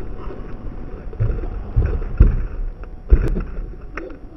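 Wind buffeting the microphone as a low rumble, with several dull thumps and a sharp click a little over three seconds in.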